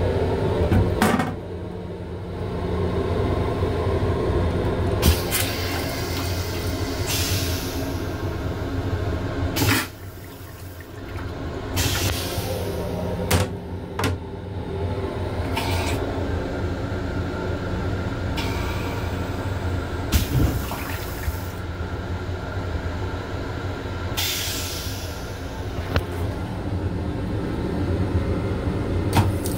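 Steady low rumble and hum of a moving M7 electric railcar, heard inside its restroom. Over it come sharp clacks as the plastic toilet lid and then the seat are lifted, and bursts of rushing noise from the toilet flushing.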